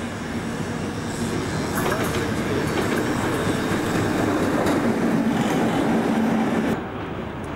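Single diesel locomotive running light engine past at close range: steady engine drone with wheels clattering over the rail joints, growing louder as it passes. The sound drops suddenly near the end.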